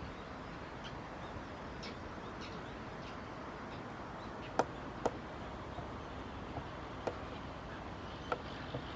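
Faint steady background hiss with a few short bird chirps and four or five sharp clicks or taps, two of them about half a second apart near the middle.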